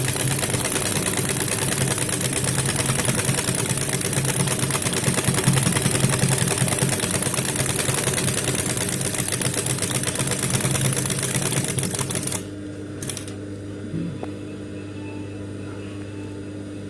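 Brother high-speed industrial lockstitch sewing machine, fitted with a buttonhole attachment, running steadily as it stitches a buttonhole with a fast, even clatter. It stops abruptly about twelve seconds in, leaving the motor's steady hum and a couple of clicks.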